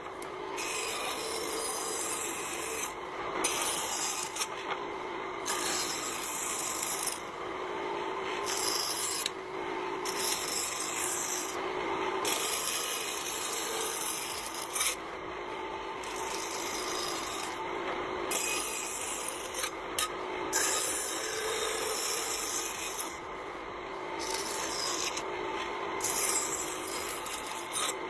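Wood being shaped by hand with a rasp or abrasive: a steady rough rubbing and scraping, in long strokes broken by short pauses every second or two.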